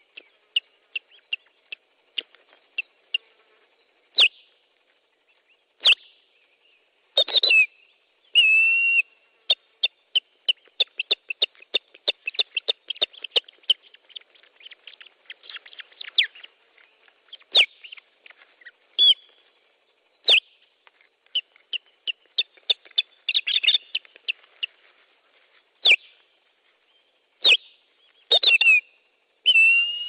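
Ospreys alarm-calling against an intruder near the nest: fast runs of short, sharp, high whistled notes, broken every few seconds by longer, louder calls that slur downward.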